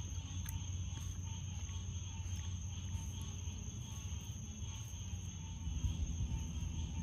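Steady chorus of crickets and other night insects, an even high trill that never stops, over a low constant hum.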